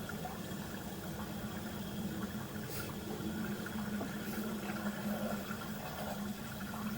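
Water from a garden hose running steadily into a sewer line through a cast iron cleanout, with a steady low hum underneath.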